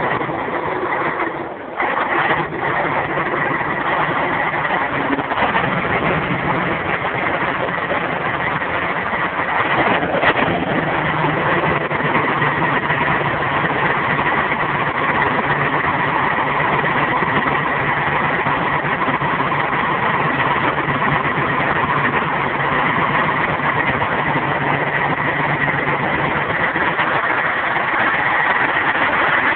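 Scania 113 Top Line truck's 11-litre six-cylinder diesel running steadily at idle with a deep rumble, dipping briefly about a second and a half in.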